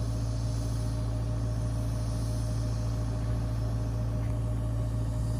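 Construction machinery engine running steadily: a constant low hum with a fixed higher tone above it.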